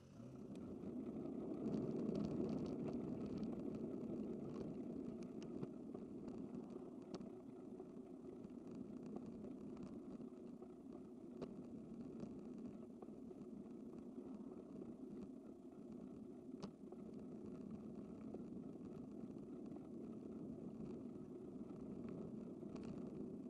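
Steady rumbling noise from riding a bicycle along a city street: wind on the microphone mixed with road and traffic noise, coming in suddenly at the start and staying level, with a few faint ticks.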